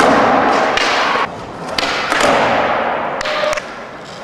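Skateboard rolling on a smooth floor, with several sharp knocks and thuds as the tail is popped and the board lands and slaps down.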